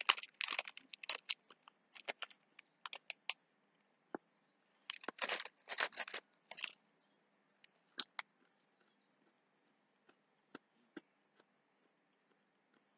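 Crinkling of a plastic peanut packet being handled and peanuts being crunched, in three clusters of short crackles over the first seven seconds. A couple of sharp clicks follow about eight seconds in, then only faint scattered ticks.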